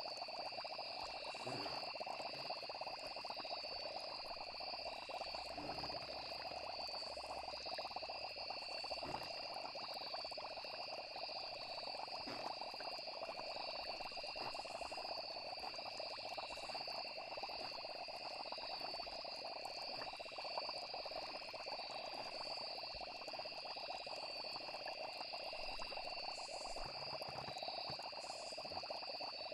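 Night chorus of frogs and insects: a steady high trilling, the upper part rapidly pulsing, that goes on without a break.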